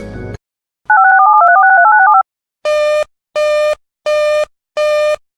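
A brief crackle, then a rapid string of touch-tone (DTMF) digits, followed by an evenly pulsed telephone-line tone beeping on and off about once every three-quarters of a second.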